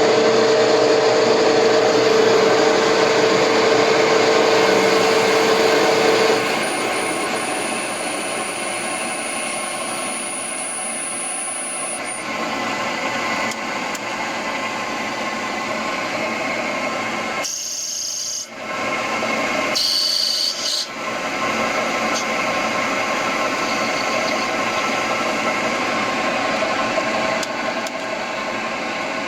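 Homemade CNC lathe turning bronze: steady machining noise of the spindle and cutting tool, with a steady hum over the first six seconds and a high whine for several seconds after. The noise dips briefly about two-thirds of the way through, then carries on.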